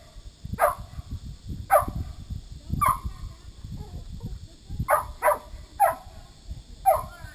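Herding dog barking: seven short, sharp barks in uneven groups, over a low rumble.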